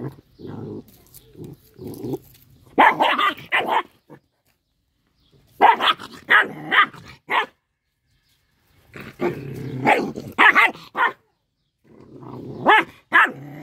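Small dog growling low and barking in short runs of three or four sharp barks, the runs broken by growls and brief pauses.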